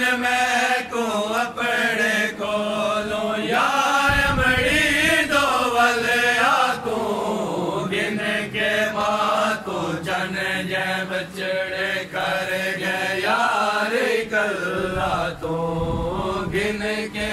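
Several men's voices singing a Punjabi noha, a mourning lament for Hussain, together without instruments. The notes are long, drawn out and wavering.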